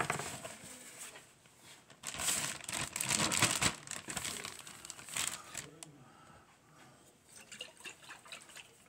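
Clear plastic zipper bag crinkling and rustling as raw catfish fillet chunks are handled into it, busiest from about two seconds in until past the five-second mark, then only a few light rustles. A short knock right at the start.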